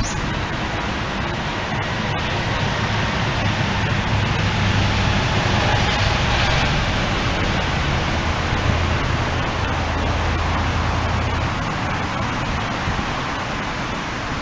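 A steady rushing noise with a low rumble underneath.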